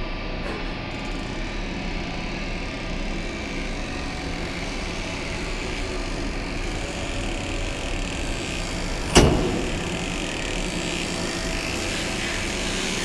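Steady, dark rumbling drone of horror-film sound design, broken by one sudden loud bang about nine seconds in.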